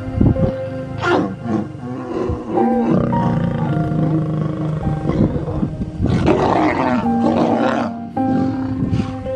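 Male lion and lioness snarling and growling during mating, in several outbursts with the longest about six seconds in, over background music with held notes.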